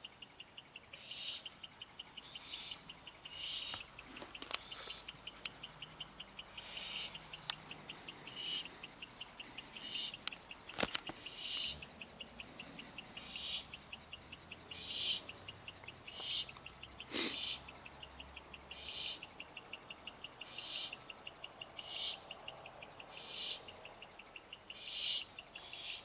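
Barn owl chicks giving their hissing, snore-like food-begging calls, short rasping bursts about once a second, over an insect chirping in a steady fast pulse. A single sharp click about eleven seconds in.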